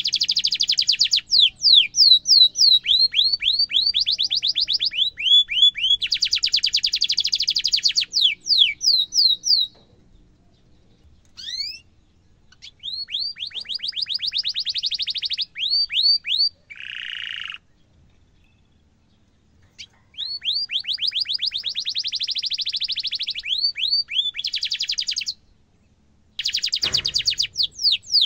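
Canary singing: long, rapid rolling trills alternating with runs of sharp rising chirps, in phrases broken by short pauses. A brief thump near the end.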